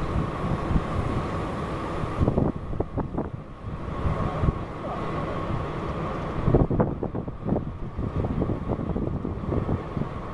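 Wind buffeting the microphone in uneven gusts over a low distant rumble, likely a freight train running across a steel truss railway bridge. A faint steady whine sits underneath.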